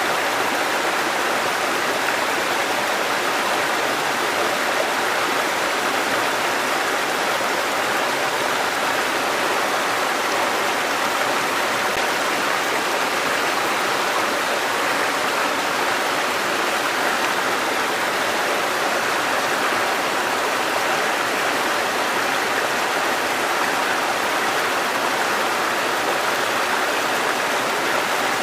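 River water flowing in a steady, unbroken rush, with most of its sound in the mid and upper range.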